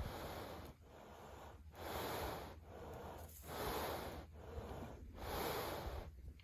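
A dairy cow breathing heavily close to the microphone: four slow, noisy breaths about a second and a half apart.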